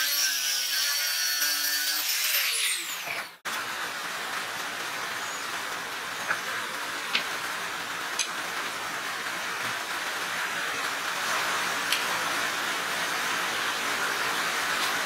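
Angle grinder with a cut-off disc cutting steel plate, its whine wavering under load, then winding down with a steeply falling pitch about three seconds in. After that comes a steady hiss with a few light clicks as a magnetic welding holder is set against the steel.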